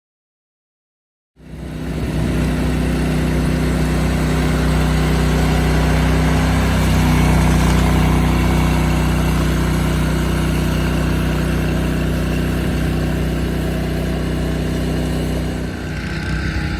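A large engine running steadily, typical of the heavy machinery on a concrete pour. It starts abruptly about a second and a half in, and its pitch shifts slightly about halfway through.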